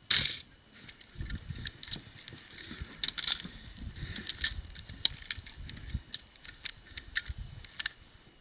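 Small clicks, jingles and rattles of a player's gear and soft footfalls as they move. A short, loud burst of noise comes right at the start.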